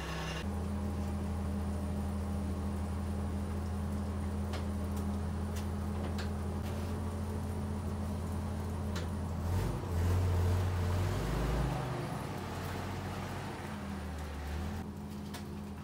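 Forklift engine running steadily with a low hum, swelling briefly about ten seconds in and then dropping lower as the forklift pulls away, with a few light metal clicks as the steel plate is set down on the welded frame.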